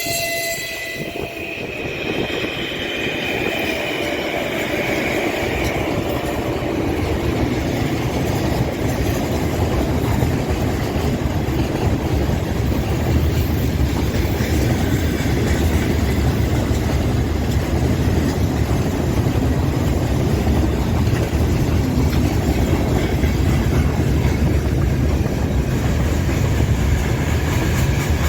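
A freight train behind a 3ES5K 'Ermak' electric locomotive rolling past on the Trans-Siberian main line, its wagons' wheels giving a steady heavy rumble that builds over the first several seconds. High whining tones sound during the first six seconds as the train comes off the curve.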